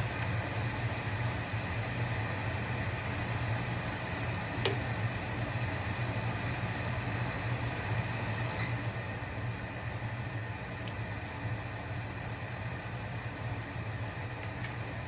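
Mustard seeds heating in hot oil in a pan, giving a few faint, scattered pops over a steady hum and hiss; they are just starting to pop.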